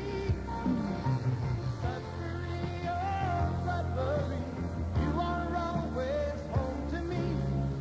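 Music from an AM/FM radio broadcast recorded on cassette tape: a melody line gliding between notes over a steady bass.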